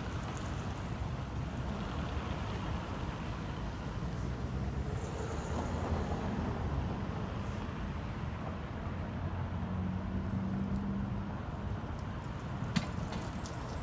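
Road traffic: cars driving slowly through a roundabout, their engines and tyres making a steady low rumble, with one engine standing out a little past the middle. A couple of sharp ticks near the end.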